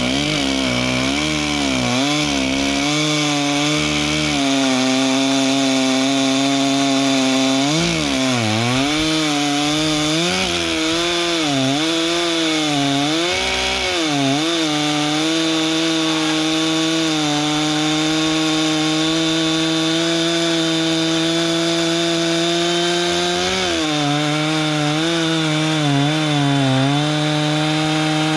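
Chainsaw revving high and cutting through a log. Its pitch sags and recovers over and over as it loads in the cut, from about 8 to 14 seconds in and again near the end, and otherwise holds steady at full throttle.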